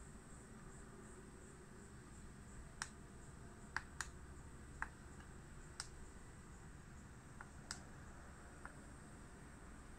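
Push-button switches on a blue-light lens demonstration box clicking as they are pressed to switch its lights on and off: about eight short, sharp clicks, unevenly spaced, starting about three seconds in, over a faint steady hiss.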